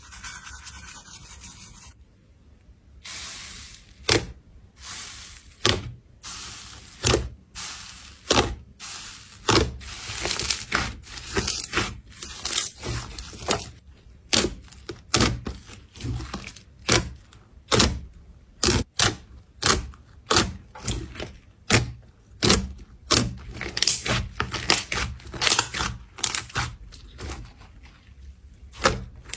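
Slime being squeezed and poked by hand close to the microphone, giving repeated sharp pops and clicks at an uneven pace with softer squishing and rubbing in between.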